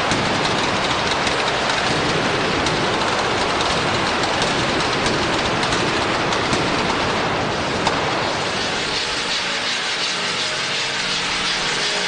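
Fireworks on the Scoppio del Carro cart going off in a dense, continuous crackle and hiss. Past the middle the crackle thins into a lower, steadier rushing.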